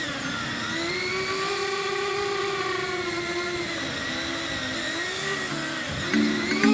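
Electric motors and propellers of a 5-inch FPV quadcopter whining, the pitch rising and falling with the throttle. Steady music-like tones come in near the end.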